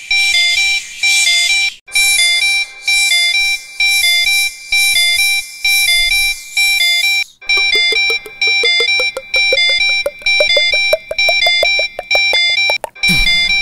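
Electronic alarm beeping in a short repeating pattern, like a McDonald's fryer timer signalling that the fries are done. About halfway through it changes to a faster run of beeps climbing steadily in pitch, which cuts off near the end.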